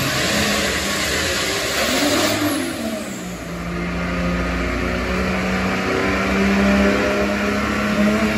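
Modified John Deere pulling tractor's engine running at full throttle while dragging the weight sled. About three seconds in it throttles back with a falling whistle, then runs on at a lower, steady drone.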